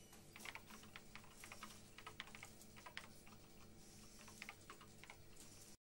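Near-silent room tone with a low steady hum and faint, irregular clicks scattered through it, a dozen or so, some in quick pairs. The track cuts off suddenly at the very end.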